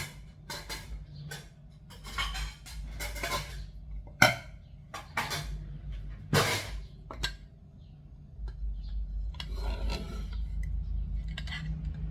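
A spoon clinking and scraping against dishes as pork liver salad is scooped into a bowl, with irregular clatters and two sharper knocks about four and six seconds in, over a low steady hum.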